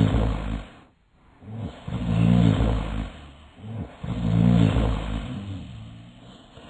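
Cartoon snoring from several sleeping characters: slow, loud snores that swell and fade about every two seconds, the last trailing off near the end.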